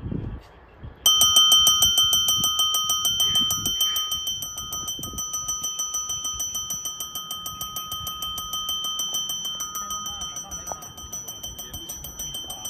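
Electric station bell in its hooded wall housing, starting abruptly about a second in and ringing continuously with rapid, even hammer strokes on its gong, easing slightly over the first few seconds and then holding steady. On an Italian railway platform this ringing announces an approaching train.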